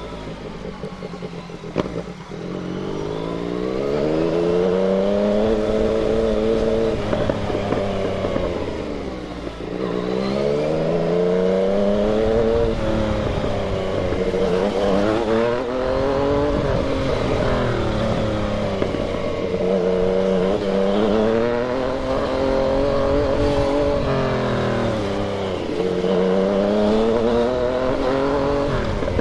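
Yamaha MT-09's three-cylinder engine running under a rider, repeatedly revving up and easing off. Its pitch climbs and falls several times through the stretch.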